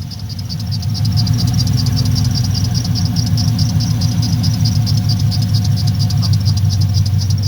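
LS V8 idling steadily, with a fast, regular high chirp over it from a squeaky belt. It is running with the plug wires moved clear of the headers, a fix for its misfire that the owner calls a win.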